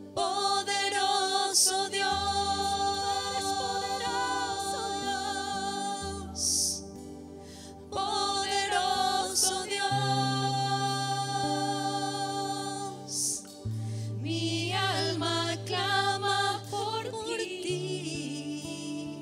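Slow Spanish-language worship song: a woman sings the lead with backing singers, over acoustic guitar and long held bass notes that change every few seconds.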